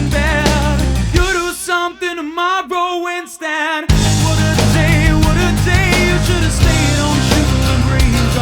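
Rock music with distorted guitars and drums. About a second in, the bass and drums drop out, leaving a wavering lead line. The full band comes back in about four seconds in.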